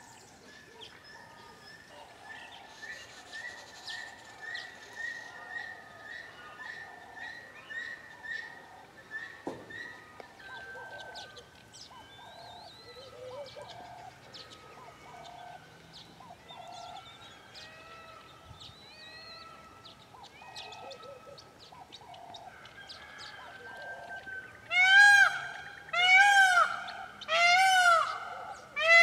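A peacock calling loudly four times near the end, about a second apart, each call rising and then falling in pitch. Before that, softer calls of other birds, one of them a steady run of short repeated notes.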